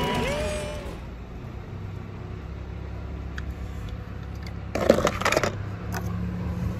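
Hollow plastic ball-pit balls clattering against each other in a short dense burst about five seconds in, followed by a few lighter clicks, over a steady low rumble.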